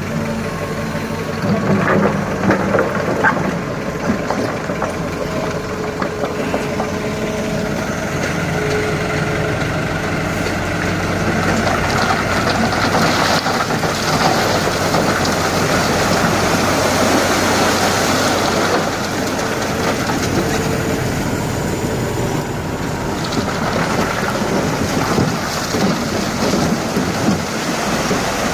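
Dump truck's diesel engine running steadily, under a rushing noise that grows louder for several seconds in the middle.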